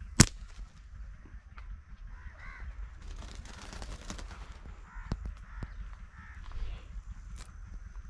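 A slingshot fired upward: one sharp snap of the released rubber bands about a quarter second in. Then a bird calls several times in short bursts from the tree.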